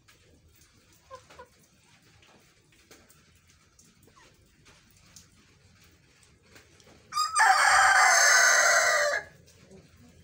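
Rooster giving one short, hoarse, hacking crow of about two seconds, a little after the seven-second mark, with a brief stutter at its start. There is soft clucking before it.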